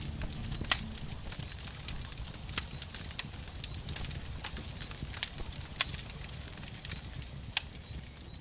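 Open wood fire crackling: sharp, irregular pops over a low steady rumble.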